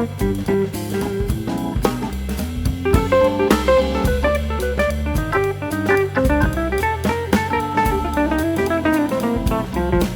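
Background music: plucked guitar over a drum kit, with quickly changing notes and a steady beat.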